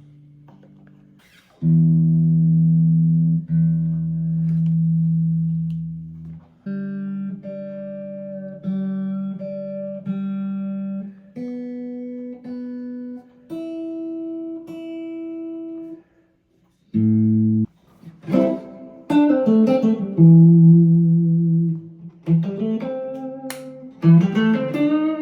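Electric guitar played through an amplifier and a newly built JHS NotaDumble overdrive pedal, as a sound test. Long ringing chords come first, then a series of shorter chords, a brief stop, and a quicker run of picked notes near the end.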